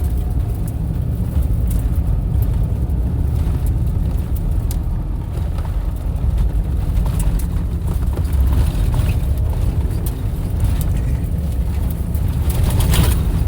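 Car driving off-road on a dirt trail, heard from inside the cabin: a steady low rumble of engine and tyres, with scattered clicks and rattles from the rough ground.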